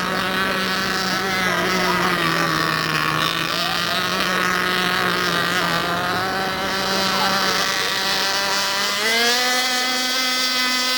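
Several radio-controlled model racing boats' small engines running at once, a high steady whine of overlapping tones. About nine seconds in, one engine rises in pitch and holds there.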